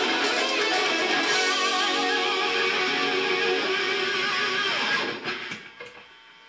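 Dean Thoroughbred electric guitar, overdriven through a Fender Mustang III amp, playing a hard-rock lead with wavering vibrato over a backing track. The music stops about five seconds in, leaving a low hum with a couple of faint clicks.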